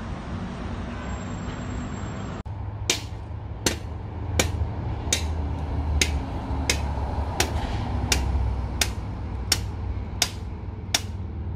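Steady outdoor background noise for about two seconds, then a sudden cut to an even series of sharp ticks, about one every three-quarters of a second, over a low steady hum. The ticks keep the same spacing across the picture cuts, so they are an added backing track rather than hammering.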